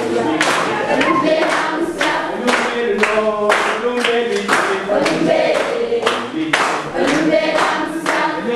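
A class of schoolchildren singing together in chorus and clapping in time, about two claps a second.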